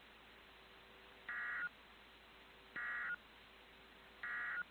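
Three short bursts of warbling EAS/SAME digital data tones from NOAA Weather Radio, about a second and a half apart, over faint radio hiss: the end-of-message code that closes the warning broadcast.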